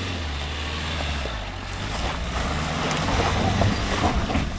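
Dacia Duster 4x4's engine running low and steady as it crawls over a rocky forest track, with tyres crunching over stones and gravel; the crunching grows louder toward the end.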